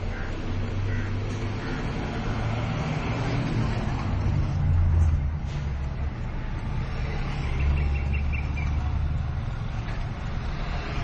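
Road traffic going by: vehicle engines running and passing, louder about five seconds in and again near eight seconds, with a short run of high ticks around eight seconds.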